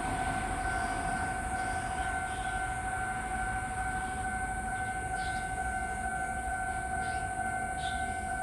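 Level-crossing warning bell sounding a steady high electronic tone, the signal that a train is approaching and the crossing is closed.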